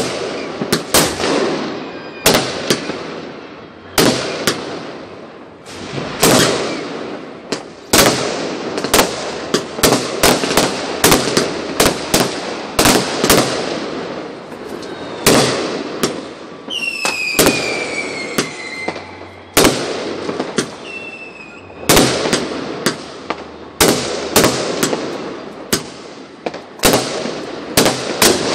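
Aerial fireworks going off in quick succession: sharp bangs and crackling bursts one after another. About sixteen seconds in, a falling whistle sounds for two or three seconds among the bangs.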